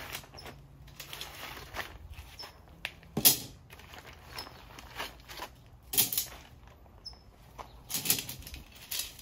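Nylon tent fabric and bags rustling and flapping as a Coleman Sundome tent is unpacked by hand, with a few sharp clacks, the loudest about a third of the way in.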